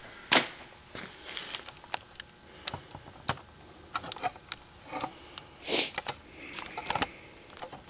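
Footsteps on a concrete floor and a leather work boot being handled close to the microphone: scattered small clicks, scuffs and knocks, with louder rustles about half a second in and near six seconds.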